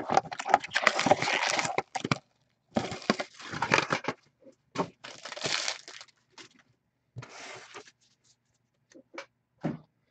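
Plastic wrap and cardboard of a box of hockey card packs being torn and opened by hand, in several bursts of crinkling and tearing, with a few light clicks near the end.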